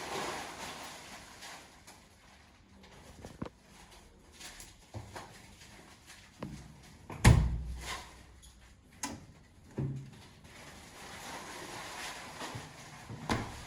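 A series of scattered knocks and clunks, with one much heavier thud about halfway through.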